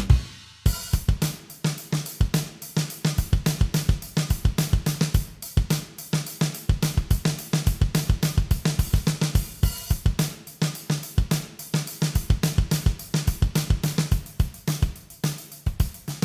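Sampled acoustic drum kit from Native Instruments' Abbey Road Drum Collection playing a groove of kick, snare, hi-hat and cymbals, dry and unprocessed. It starts after a short pause about half a second in, as a new kit comes in.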